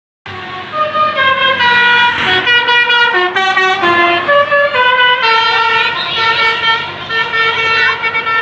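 A tour bus's 'telolet' multi-tone musical horn playing a quick tune of many short notes that step up and down in pitch, some notes overlapping.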